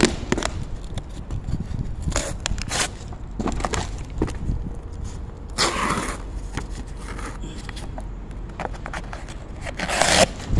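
Footsteps in sneakers scuffing and scraping on a concrete slope, with sharp scrapes now and then, the loudest ones about six seconds in and near the end, over a steady low rumble.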